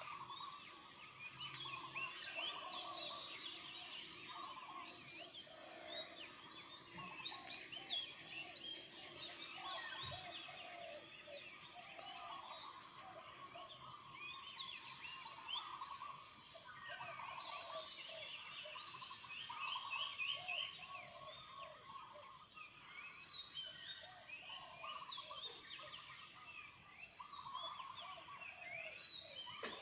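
A dense chorus of many birds calling at once, short chirps and chatters overlapping without a break, over a steady high-pitched hum.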